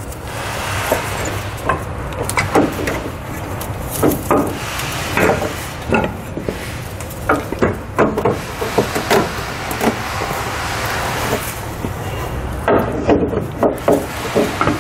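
A Firestone air helper spring and its steel lower bracket being worked by hand into the upper bracket under a pickup's rear axle: irregular knocks, clunks and rubbing as rubber and metal bump and scrape into place, over a steady low background hum.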